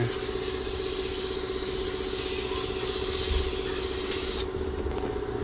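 Aerosol brake cleaner spraying in one long continuous hiss that cuts off about four and a half seconds in.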